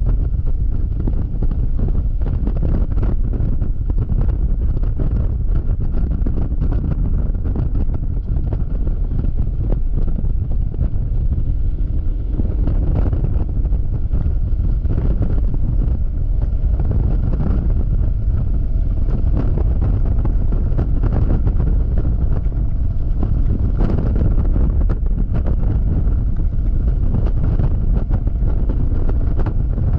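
Wind buffeting hard on the camera microphone of a Yamaha XMAX scooter riding at highway speed. It makes a loud, steady, low rush, with the scooter's engine faintly underneath.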